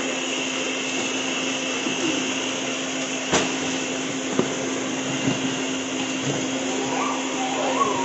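Blender running steadily at a constant pitch, liquefying whole peeled lemons in water. A single sharp knock sounds about three and a half seconds in.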